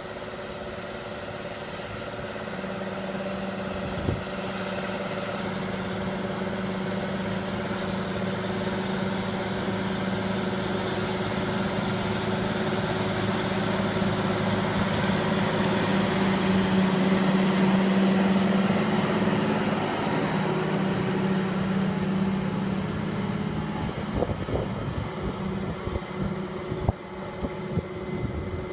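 Heavy machine engine running steadily, growing louder to a peak about two-thirds of the way through and then easing off, with a few light knocks near the end.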